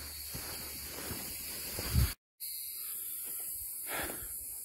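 Faint outdoor background with a steady high hiss, a single low thump about two seconds in, then a brief dead silence where the recording cuts before the hiss resumes.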